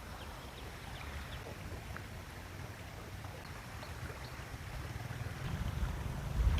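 Wind rumbling on the microphone, swelling near the end, with faint, scattered bird chirps over it.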